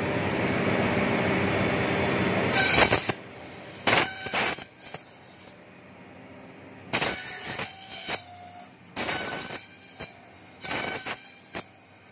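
Bamboo satay-skewer slicer-planer machine running as bamboo strips are fed through its rollers and planer blades. It gives a loud, dense grinding for about the first three seconds, then quieter running broken by short, sharp bursts of cutting noise every second or so.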